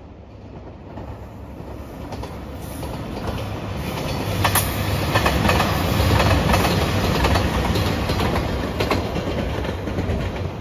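JR Shikoku 2700 series diesel limited express train passing close by. Its rumble grows louder as it approaches, is loudest about six seconds in, and then eases as it goes by, with a few sharp clacks of the wheels over the rail.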